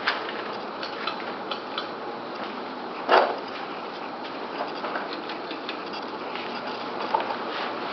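Vintage ceiling fans running, a steady whir of motors and moving air with scattered light ticks and one louder knock about three seconds in.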